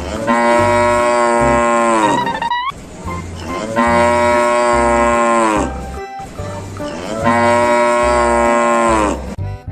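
A cow mooing three times, each a long call of about two seconds whose pitch drops at the end, over background music with a steady low beat.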